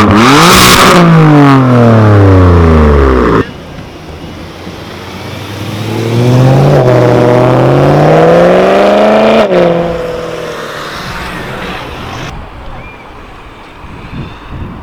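Supercar engines in two edited clips. First a loud engine whose pitch falls steadily, cut off abruptly about three and a half seconds in. Then another engine rising in pitch with a gear-change step, peaking, and fading away as the car drives off.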